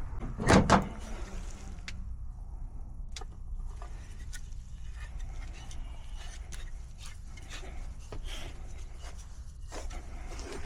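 Hand work on metal pipe fittings and tools: a loud double knock about half a second in, then scattered light clicks and ticks over a steady low hum.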